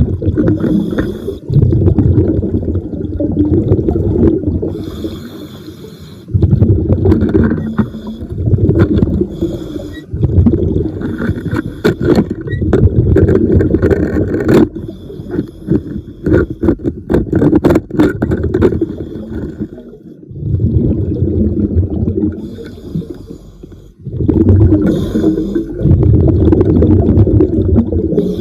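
A scuba diver breathing underwater: long gurgling, rumbling bursts of exhaled bubbles alternate with short hissing inhalations through the regulator, in a cycle about every five seconds.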